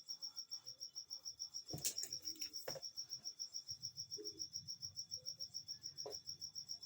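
A cricket chirping steadily, a high pulsing trill of about seven pulses a second, with a few faint clicks of handling on the bench.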